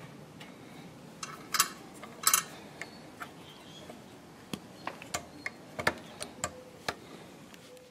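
Light metal clicks and taps of the fuel pump of an air-cooled diesel generator engine being handled and pushed back into place by hand, with two louder clatters in the first few seconds.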